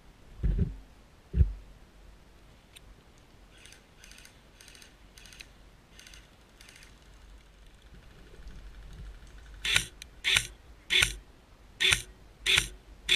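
Airsoft electric rifle firing single shots. Each is a short mechanical zip of the gearbox, starting about ten seconds in and coming a little under two a second. Earlier there are fainter shots in a similar rhythm from farther off, and a couple of low thumps near the start.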